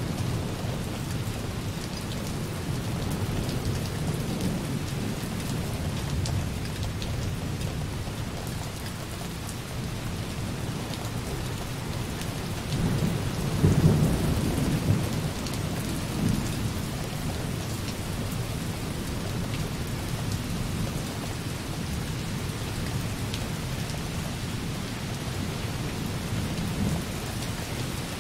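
Light rain falling softly on a window, steady throughout, with distant thunder rumbling low in the background. The thunder swells to a louder roll about halfway through.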